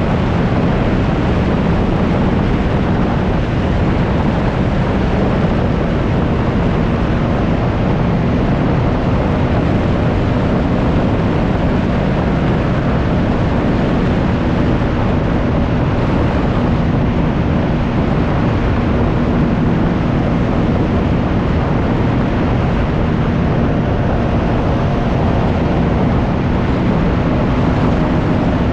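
Can-Am Ryker 900's three-cylinder engine running at a steady cruise, under heavy wind rush over the microphone.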